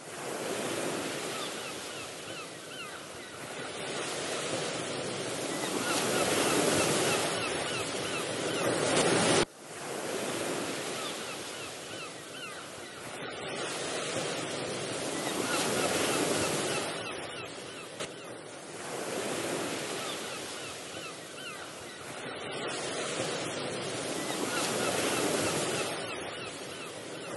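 Sea waves breaking and washing onto the shore, the surf swelling and ebbing every few seconds, with a brief sharp cut-off about nine seconds in.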